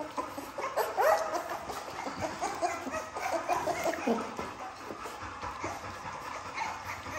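A litter of American bully puppies whining and yipping as they jostle over a shared bowl of raw ground beef: many short, squeaky cries, the loudest a rising yelp about a second in.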